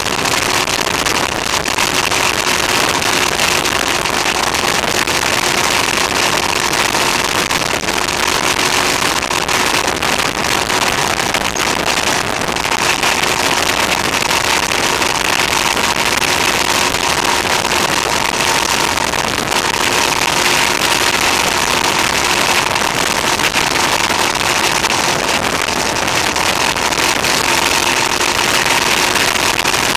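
Motorcycle cruising at a steady speed, heard from a camera on the bike: steady wind rush with a steady engine drone underneath. The camera's recording level was set slightly too high, so the sound is harsh and overdriven.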